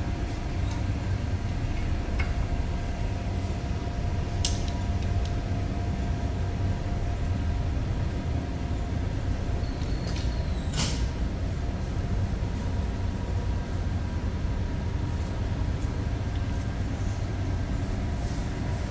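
Steady low rumble of workshop background noise with two faint steady hums over it, and a couple of brief light clicks, about four and a half and eleven seconds in.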